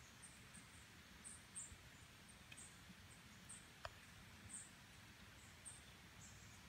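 Near silence, with faint, high, thin bird calls: short chirps every second or so from small songbirds. A single faint click about four seconds in.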